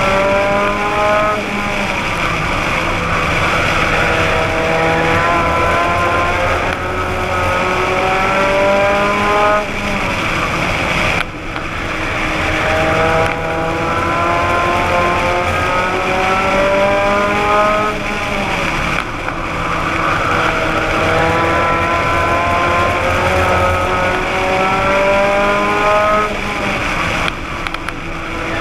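Race car's engine heard from inside the car under hard acceleration, lap after lap. The pitch climbs along each straight and drops sharply as the driver lifts for the turns, about every eight seconds.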